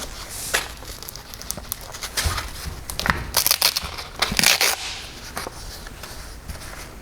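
Rustling, crackling handling noise with short ripping sounds, loudest about three and a half and four and a half seconds in. This is a hook-and-loop sanding disc being peeled off a drill's backing pad and a new disc fitted. No drill is running.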